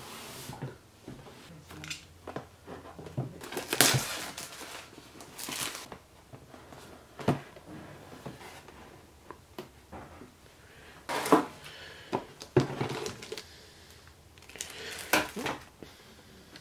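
A boxed Wi-Fi range extender being handled and opened by hand: intermittent crinkling and rustling of cardboard and plastic packaging, in several short bursts.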